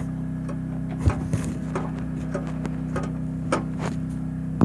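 Scattered light knocks and clicks of a handheld camera bumping and rubbing against a go-kart's metal tube frame, about eight in all, over a steady low hum.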